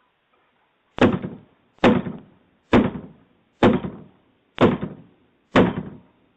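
Heavy pounding on a door: six loud, evenly spaced blows, a little under a second apart, each dying away briefly.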